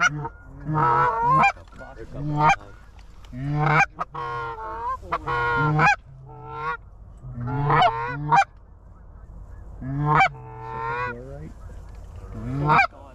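Goose honking: a dozen or so loud, rising honks in quick, irregular bunches.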